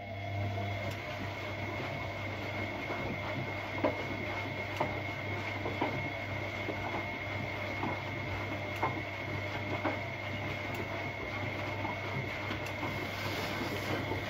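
Siemens Siwamat Perfecta SL washing machine starting up suddenly and running steadily on its Delicates cycle: a steady hum with a thin high whine over it, and light clicks about once a second.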